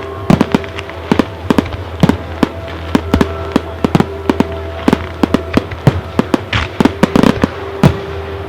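Fireworks shells and firecracker-like effects bursting in a rapid, irregular string of many sharp bangs, with music and its held notes playing underneath.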